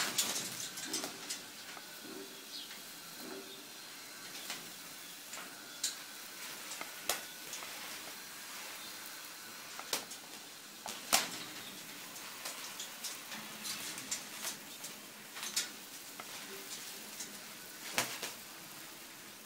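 Scattered sharp clicks and taps over a faint steady hiss as a pair of wet scarlet macaws clamber and flap about a metal cage under a shower of water; the loudest knock comes about eleven seconds in.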